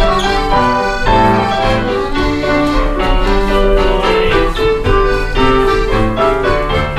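A live country dance band playing a folk dance tune, with a piano accordion among the instruments; steady, continuous notes in a flowing melody.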